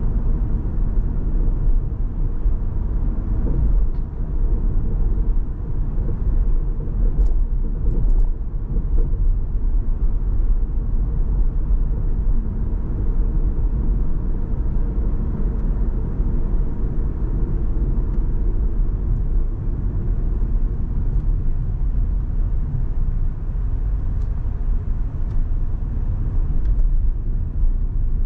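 A car driving on city streets: a steady low rumble of road and engine noise.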